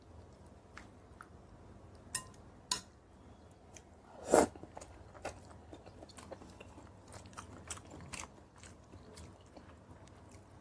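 A person chewing and biting a meal of kimchi noodles, fried eggs and kimchi, close to the microphone: a run of short, sharp clicky mouth noises, with one louder, longer noise a little after four seconds in.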